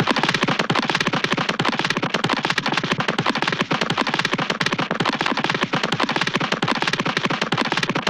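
Cartoon running sound effect: a loud, very fast, even patter of footstep taps that starts and stops abruptly.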